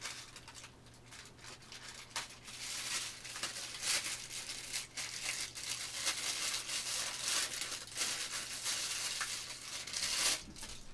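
Clear plastic packaging crinkling and rustling in irregular bursts as it is handled and pulled open to unwrap a part, with a louder burst near the end.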